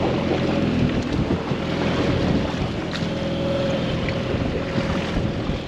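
A boat's motor runs steadily under wind buffeting the microphone.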